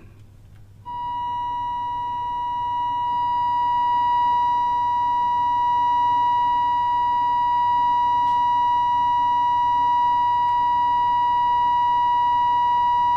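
Steady test tone from the signal generator, played through the speaker of the HMV 61-51 valve radio as it receives the modulated test signal during alignment. It comes in about a second in and grows a little louder over the next few seconds as the antenna trimmer is peaked.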